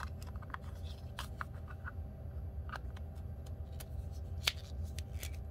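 Small clicks and brief rubbing of hands handling a battery-powered soldering iron's plastic handle as the 18650 battery is put back in, over a steady low hum. One sharper click comes about four and a half seconds in.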